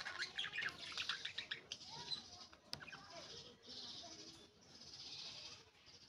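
Budgerigars chattering and warbling: a quick run of chirps in the first two seconds, then softer steady chatter.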